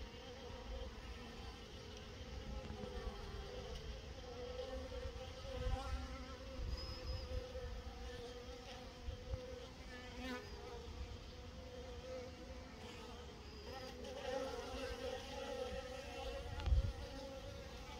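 Honeybees buzzing at the hive entrance as they fly in and out, a wavering hum that swells as bees pass close, louder in the last few seconds. A low thump near the end.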